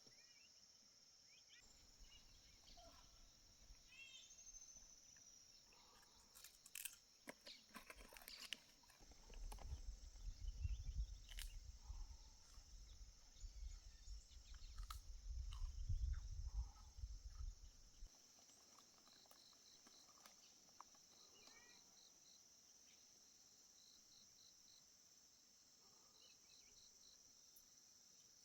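Insects and crickets chirping: a steady high-pitched buzz throughout, with short pulsed trills repeating through the second half. Near the start there are a few short chirps. In the middle come several clicks and knocks, then a low rumble lasting several seconds.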